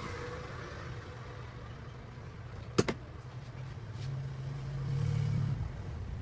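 Steady low background hum, swelling for a moment past the middle, with one sharp click nearly three seconds in and a fainter click about a second later.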